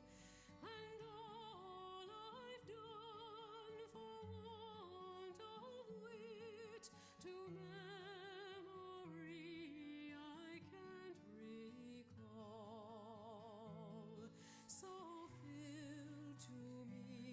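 Quiet background music: a slow melody of held notes with strong vibrato over sustained low notes.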